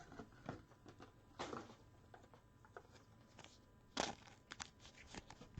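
Faint scattered clicks and a brief rustle of trading cards and packaging being handled, with one sharper click about four seconds in.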